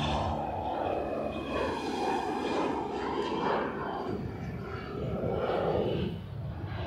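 Business jet's twin rear-mounted turbofan engines at takeoff power as it lifts off and climbs away: a steady rushing jet noise that eases slightly near the end.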